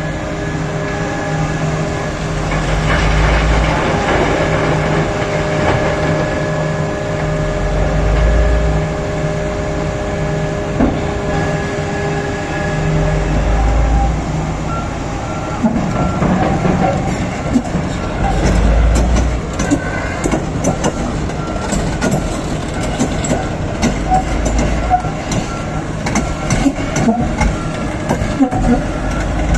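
Komatsu PC4000 mining excavator digging in poorly broken rock. For the first half its engine runs with a steady hum under load. From about halfway the bucket scrapes and grinds on rock with dense crackling and knocks, and a high beep repeats rapidly.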